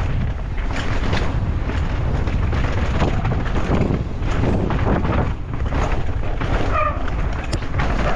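Wind buffeting the microphone of a mountain bike POV camera at speed, with the bike knocking and rattling over the dirt. There is a brief pitched squeal about seven seconds in.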